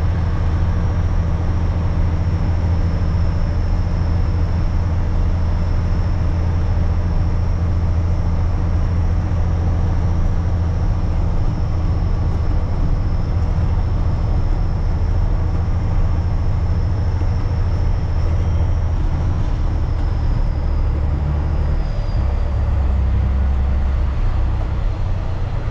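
Grain truck's engine running steadily as it drives, with a thin high whine over the low engine hum. The high whine falls slightly in pitch and the engine's low note drops about three-quarters of the way through as the truck slows.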